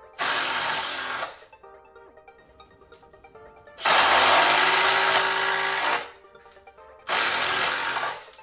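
Makita 18 V brushless impact drivers (a DTD155 subcompact and a DTD171) hammering as they drive screws into pine, in three bursts: about a second, then about two seconds, then about a second near the end.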